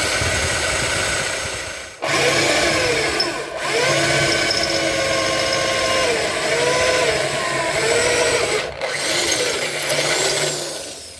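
Electric drill with a 1/4 inch bit drilling a pilot hole into a metal bumper, running in several stretches with short breaks, its pitch rising and falling as it bites into the metal. It stops shortly before the end.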